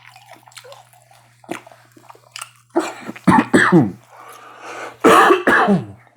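A person coughing and clearing their throat, in two bouts about two seconds apart, each with a falling, voiced rasp.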